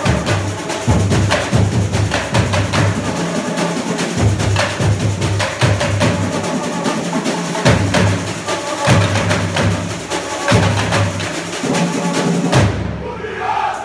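Samba school bateria playing a batucada: deep surdo bass drums beating a repeating pattern under dense snare and small hand-drum strokes. Near the end the high drums stop and a low bass drum note rings on alone.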